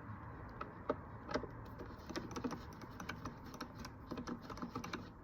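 Faint, irregular light clicks and taps of a hand tool working the small Allen screws and bolts, and of plastic trim being handled, while motorcycle panels are taken off.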